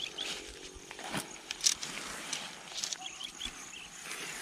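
Tent poles being handled: a few sharp clicks and knocks with rustling as the poles are pulled from their bag and the sections fitted together. Short bird chirps near the start and about three seconds in, over a faint steady insect hiss.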